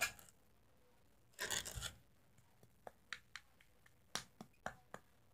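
Faint handling noises from hands working a batch of glittery shaving-gel slime on a tabletop: a short rustle, then a scatter of small clicks and taps.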